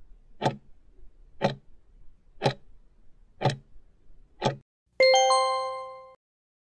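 Countdown-timer clock ticks, one a second, five in all, then a bright chime with several ringing tones sounds about five seconds in and fades away: the signal that time is up.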